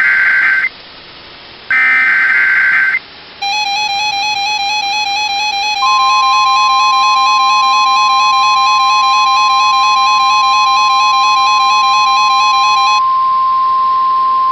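The last of the EAS SAME header data bursts, harsh electronic screeches about a second long, end about 3 s in. Electronic music with a wavering, chime-like tone follows. About 6 s in, the steady NOAA Weather Radio 1050 Hz alert tone starts and holds, continuing alone after the music stops near the end.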